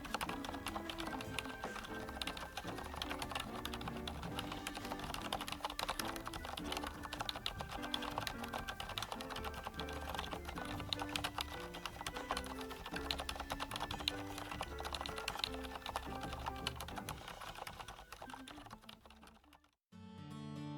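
Rapid typing on a GAMAKAY LK67 mechanical keyboard with an aluminium switch plate and dampening foam, a dense run of keystroke clicks that fades out near the end. Background music plays under it.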